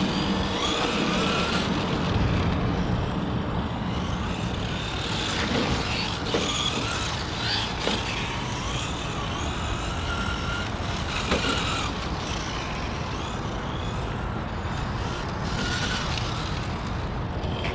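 Traxxas 4-Tec 3.0 '35 Hot Rod RC truck driving on asphalt: the electric motor whines, rising and falling in pitch with the throttle, over steady tyre and drivetrain noise.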